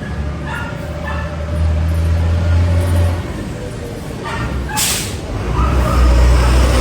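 A motor vehicle engine running with a low rumble that grows louder about six seconds in, with a short hiss of air just before.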